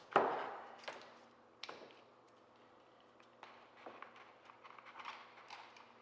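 Small metal clinks of a hex key and socket tool being worked on a bike pedal while the flanged bearing nut is unthreaded from the axle. A sharp clink with a short ring comes at the start, lighter clicks follow about a second and nearly two seconds in, then faint handling noise.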